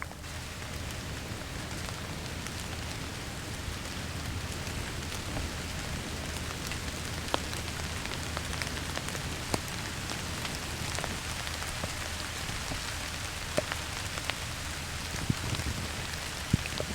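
Steady rain falling, with a few louder single drops striking close by now and then.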